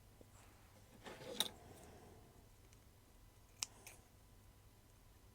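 Faint small handling sounds of plumber's tape being worked around a plastic toy part: a brief rustling scrape about a second in, then two light clicks.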